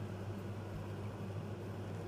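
A steady low hum with an even hiss: background machine noise, with no other event standing out.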